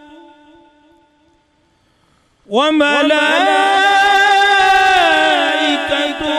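A man reciting the Quran in a melodic, chanted style through a microphone. A long held note fades out, and after a pause of about a second and a half a new phrase begins with a rising swoop and is held with wavering ornaments.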